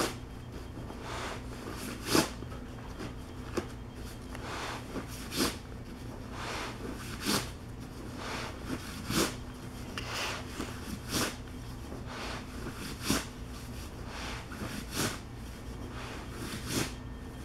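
Tent rain fly fabric rustling and swishing as it is rolled up tightly by hand, in short swishes about every two seconds, over a steady low hum.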